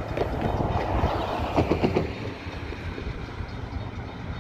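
Low rumble of an approaching freight train, with a short run of sharp clicks about a second and a half in.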